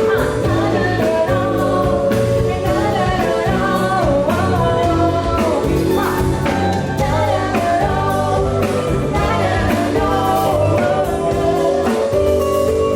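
Live band playing a Thai pop song: a wavering melodic lead over bass, guitar and a steady drum beat.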